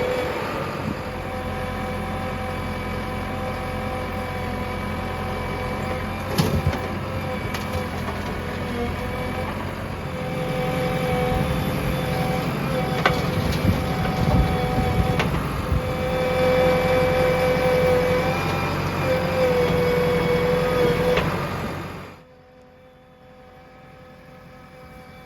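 JCB 3DX backhoe loader's diesel engine running under load, with a whine that comes in and drops away several times and a few sharp knocks. The sound falls away sharply about 22 seconds in.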